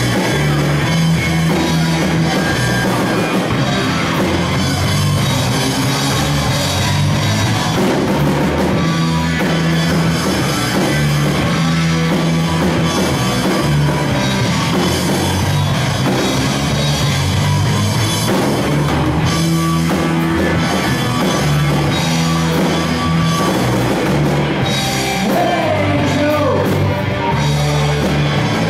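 Live rock band playing loud and continuously: electric guitars, electric bass and a drum kit.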